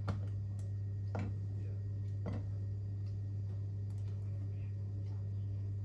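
A plastic cup scooping porridge from a stainless steel pot and pouring it into ceramic bowls, giving several light knocks against the pot and bowl in the first few seconds. A steady low hum runs underneath.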